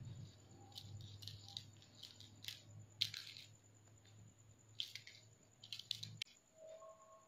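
Faint scattered taps and clicks of hands rolling soft tapioca dough into ropes on a hard board, the sharpest about three seconds in. A low steady hum underneath cuts off suddenly about six seconds in.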